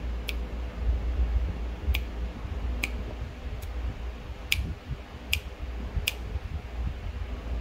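About seven sharp, light clicks at uneven intervals, from fingers handling the wireless microphone gear, over a steady low rumble.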